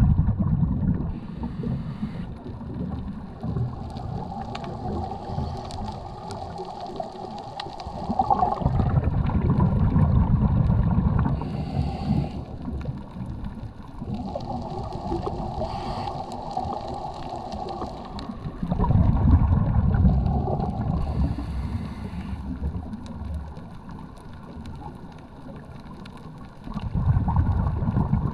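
Scuba diver breathing through a regulator, heard underwater through the GoPro housing. Slow breaths come about every ten seconds: each exhale is a loud rumble of bubbles lasting a few seconds, with a quieter hiss in between.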